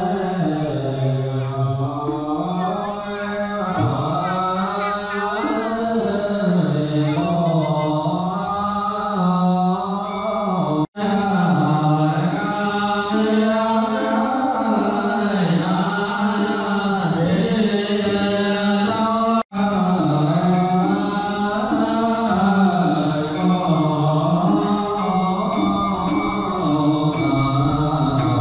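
Buddhist sutra chanting: a slow, melodic sung chant that flows on without pause, cut off abruptly for an instant twice.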